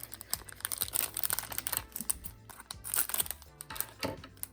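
Surprise-toy blind pack opened by hand: quick crinkles and clicks of the packaging, over quiet background music.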